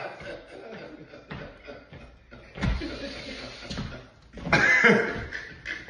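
A man laughing in short, uneven bursts, louder about two and a half and four and a half seconds in.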